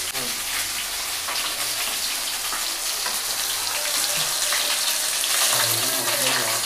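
Food sizzling steadily in hot oil in a cooking pan.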